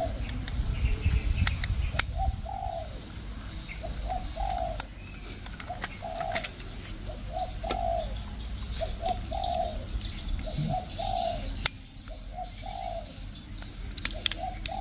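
A dove cooing over and over, a short note followed by a longer one, about every two seconds, with a few sharp clicks now and then from the plastic toy train being handled.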